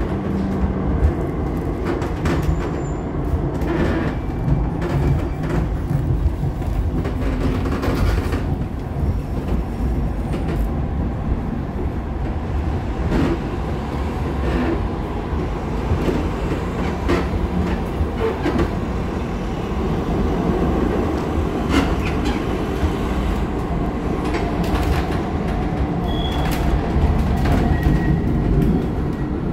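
A Cologne light-rail car running, heard from inside the car: a steady rumble of wheels and running gear on the rails, with scattered clicks and knocks and a couple of brief faint squeals.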